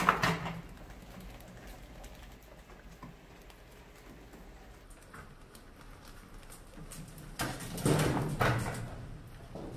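A hinged clear-plastic ramp on a homemade bucket rat trap tipping under a rat and dropping it into the plastic bucket with a clatter. This happens once at the start and again, longer and louder, about seven and a half seconds in.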